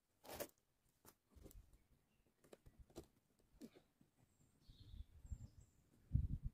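Slabs of tree bark and dry twigs knocking, snapping and crackling as they are handled on a fallen tree trunk, with footsteps in forest litter. A sharp knock comes just after the start, and a cluster of low thuds about six seconds in is the loudest part.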